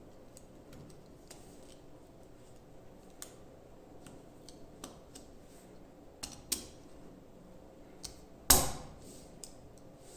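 Scattered light clicks and taps of small hard objects being handled, with one sharp, louder click and a short ring about eight and a half seconds in.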